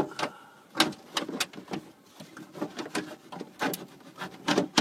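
Plastic snap-in dash trim panels on a pickup's interior being pried and pulled loose by hand: a string of irregular clicks, snaps and knocks of plastic clips releasing and panels being handled, with a cluster of clicks near the end.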